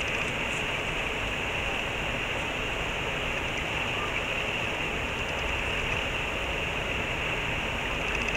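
Steady rushing of a river or stream, an even wash of water noise that runs on without change.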